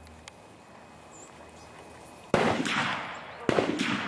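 Two rifle shots about a second apart, each sharp and loud with a long echoing tail. They come too close together for one bolt-action rifle, so more than one rifle is firing.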